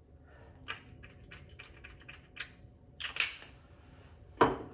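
Small items being handled and set down: a run of light clicks and taps, a louder clatter about three seconds in, and a sharp thump near the end.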